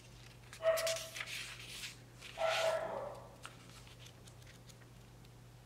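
Thin pages of a Hobonichi planner being leafed through by hand: two rustling page flips, the first just under a second in and the second about two and a half seconds in.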